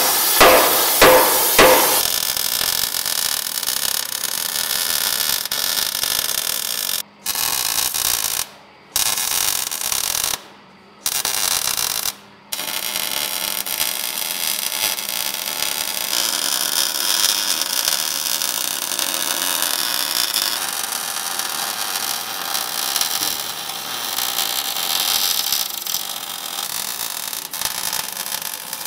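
A few hammer blows ringing on the steel truck frame, then a MIG welder crackling steadily as a bead is laid along the cut frame joint, with four short stops a few seconds after the hammering ends.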